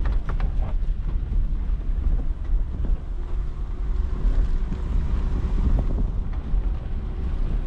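A car driving over a rough, stony dirt track: a steady low rumble of engine and tyres on the rocks, with wind on the microphone.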